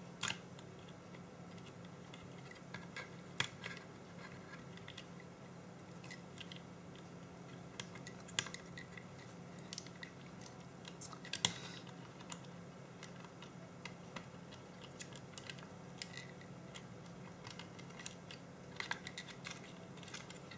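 Scattered small clicks and taps of plastic and metal parts as the top cover and button area of an Olympus C-350 digital camera are handled and fitted, over a faint steady hum.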